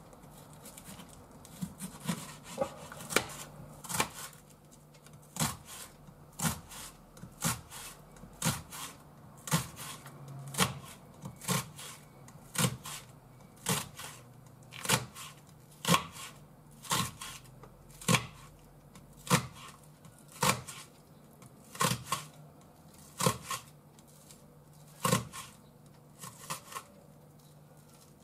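Kitchen knife slicing vegetables by hand on a wooden cutting board, the blade knocking sharply on the board about once a second at a slow, even pace.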